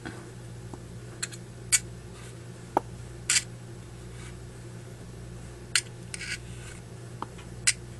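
Scattered small clicks and scratches from handling a Zippo lighter's metal insert while its cotton packing is pulled out, about nine sharp ticks over a low steady hum.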